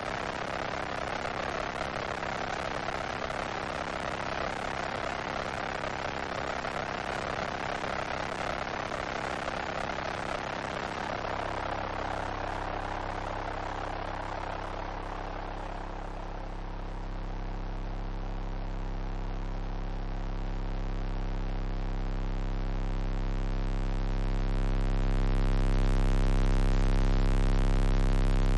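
Electronic sound-design drone. A rushing hiss fades out over the first half while a low hum with many steady overtones takes over about eleven seconds in and grows louder toward the end.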